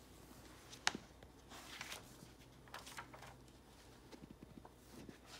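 Faint handling of a paperback picture book: a sharp click about a second in, then soft paper rustles and small ticks as it is moved and its pages turned.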